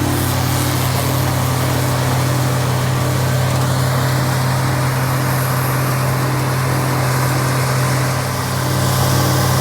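Heavy diesel farm machinery running steadily under load: a deep constant engine drone with a wide mechanical hiss over it.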